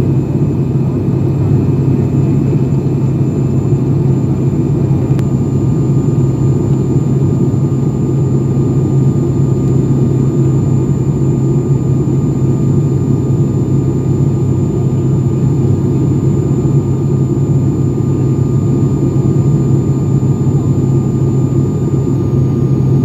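ATR 72's twin turboprop engines and propellers droning steadily, heard from inside the passenger cabin during the descent to land. A strong, even low hum carries throughout, with a thin steady high tone above it.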